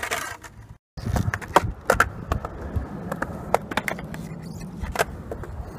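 Skateboard rolling on concrete with a steady low rumble from the wheels, broken by a series of sharp clacks of the board and trucks striking the concrete. The sound cuts out briefly just before a second in.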